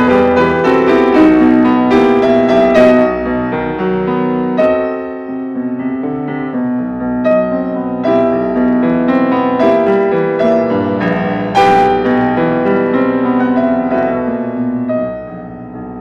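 Piano music, its notes ringing on over one another, dropping in level near the end.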